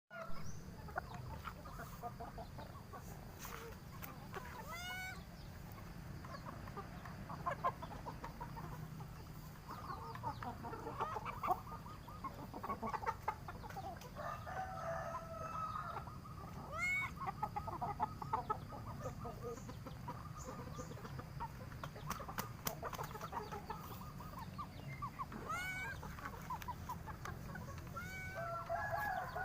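Domestic chickens, a rooster among them, clucking and calling, with a short sharp rising call a few times.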